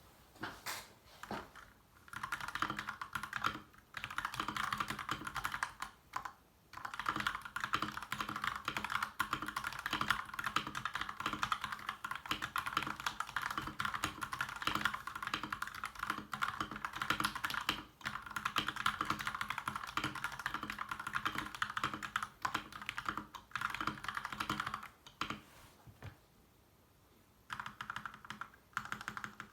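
Typing on an LK67 mechanical keyboard fitted with Akko Neon keycaps: fast, continuous keystroke clacks, broken by a few short pauses and one longer pause near the end.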